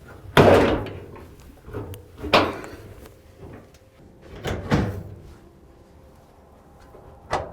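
Knocks and clunks of dryer cabinet parts being fitted together: about five separate hits spread out, the first the loudest, each with a short ringing tail.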